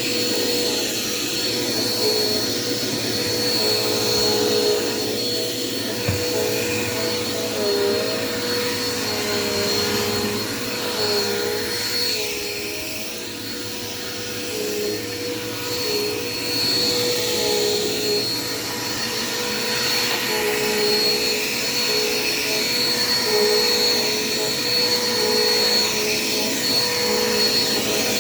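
Dirt Devil Quick Power vacuum cleaner running steadily, its motor whining with a pitch that wavers slightly as it works, and its loudness dipping briefly about halfway.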